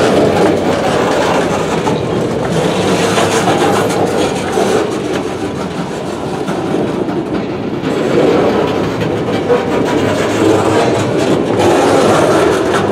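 Freight train boxcars rolling past close by: steel wheels running on the rails, a loud steady rumble that eases slightly midway and swells again.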